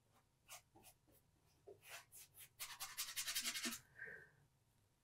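Paintbrush strokes on an oil painting. A few separate light strokes, then about a second of quick back-and-forth scrubbing a little after the middle.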